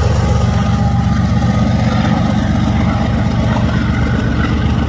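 Diesel freight locomotives rumbling steadily at close range as the train moves through the crossing.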